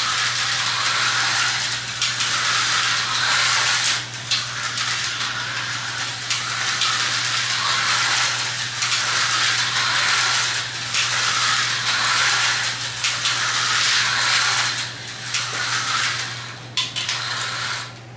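Vintage Tyco HO-scale slot cars running flat out around a plastic track, their small electric motors whining and their pickups buzzing along the rails, the sound swelling and fading about once a second as they lap. A click comes near the end, and the running stops just after.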